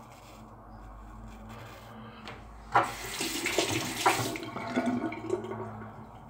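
Quiet scraping of a shavette razor through lathered stubble, then a sink tap runs for about three seconds. The tap water starts with a sharp knock and fades out near the end.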